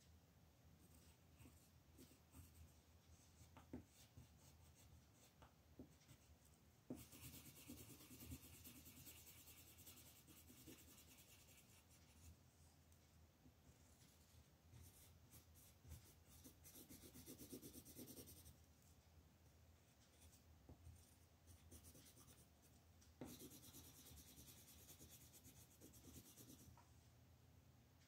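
Soft scratching of an orange colouring pencil on paper, in three bouts of quick back-and-forth strokes a few seconds each, with light ticks and taps of the pencil between them.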